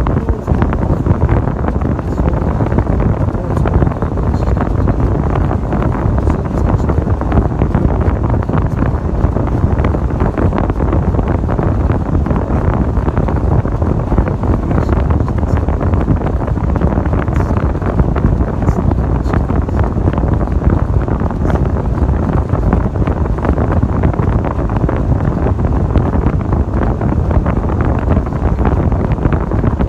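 Steady, loud rumble of a 1996 Ford Bronco driving, with wind buffeting the microphone.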